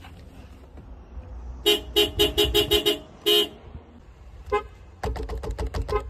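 Subaru car horn tapped in quick short toots: a rapid run of about six toots, one more just after, then a faint toot and a fast flurry of shorter beeps near the end.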